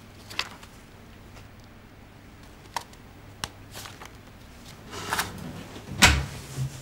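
Paper handling: a few soft rustles and clicks as pages of a folder are turned. About six seconds in, a wooden cabinet door is pulled open with a sharp knock and a low thud, the loudest sound.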